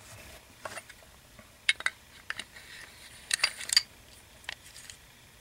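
Light metallic clicks and clinks of a Ballester Molina .45 pistol's steel parts as the slide is fitted back onto the frame during reassembly. The clicks come one at a time, with a quick cluster of several about three and a half seconds in.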